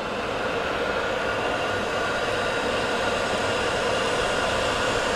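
Old electric heat gun running steadily, blowing hot air into a coolant passage to dry out the water left in it.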